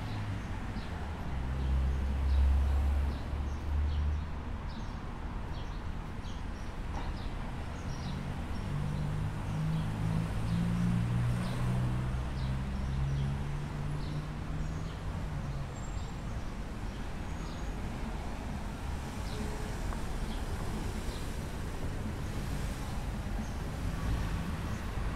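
Residential city street ambience heard on foot. A car engine rumbles past about two seconds in, and a vehicle engine hums through the middle. Small birds chirp in short high notes throughout.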